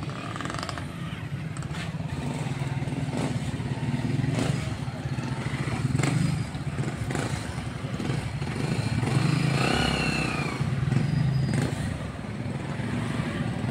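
Motorcycle engines running steadily, one passing close and loudest about six seconds in.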